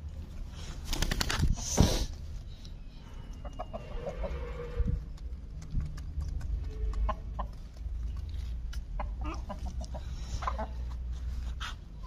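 Birds calling with short clucking and squawking notes. The loudest calls come about one to two seconds in, with a few more near the end.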